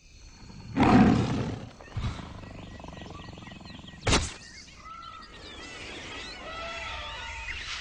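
Jungle sound effects from an animated film's soundtrack: a big-cat roar about a second in, then a short knock and a sharp crack just after four seconds, followed by many chirping, whistling bird calls.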